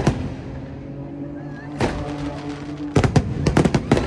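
Aerial fireworks bursting: sharp bangs right at the start, a single one near two seconds in, then a quick run of several bangs about three seconds in. Steady music plays underneath.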